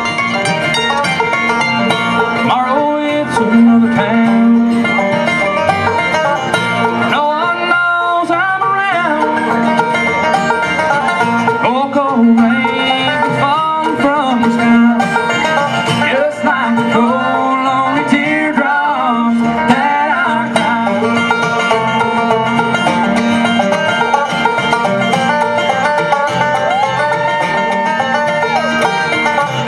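Live bluegrass band playing a song on banjo, mandolin and acoustic guitar, with steady rhythmic picking throughout.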